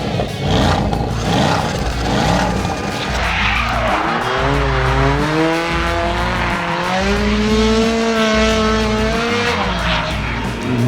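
Car engine sound effect with background music: a noisy stretch, then from about four seconds in a steady engine note that slowly rises and falls.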